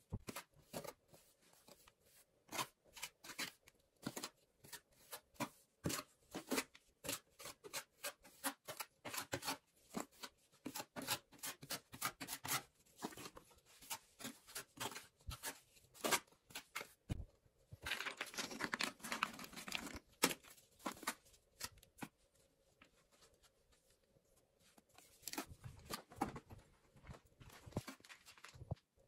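Objects being handled: irregular sharp clicks, taps and scratches, with a denser stretch of rustling about 18 seconds in that lasts about two seconds.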